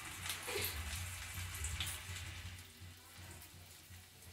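Chopped garlic and cumin seeds frying in hot oil in a small tempering pan for a tadka: a soft sizzle with scattered crackles and pops, dying down after about two and a half seconds.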